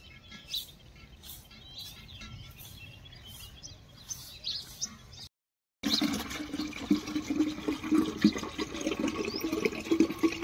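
Faint bird chirps, then after a short break a stream of water pouring from a tap through a steel funnel into a water pot, a steady louder splashing rush.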